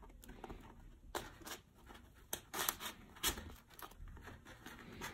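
Faint handling noise: scattered soft rustles and light clicks as an EPP foam model-aircraft fuselage and a small plywood bracket are turned in the hands and rubbed against each other.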